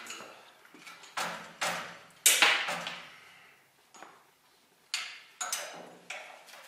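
Irregular knocks and clanks of a heavy sheet-metal cabinet being shifted against a steel hand truck while a strap is worked around it, about seven in all, the loudest a little over two seconds in.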